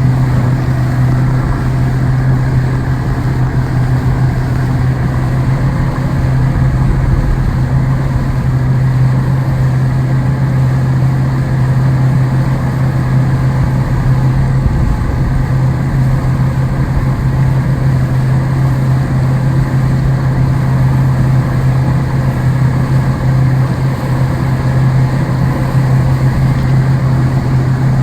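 An engine running steadily at a constant speed, a loud, even low hum with noise over it.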